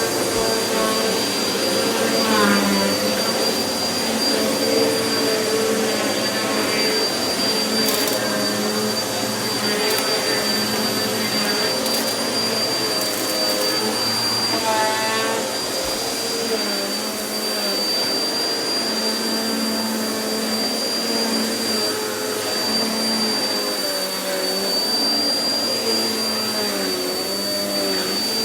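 Vacuum cleaner running steadily over carpet treated with carpet powder, with a constant high motor whine and a wavering pitch as it is pushed back and forth. A few sharp clicks come as crunchy debris is sucked up.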